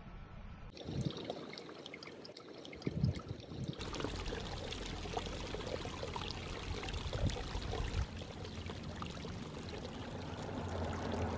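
Small rocky creek trickling and splashing steadily over stones, with a couple of soft knocks about one and three seconds in.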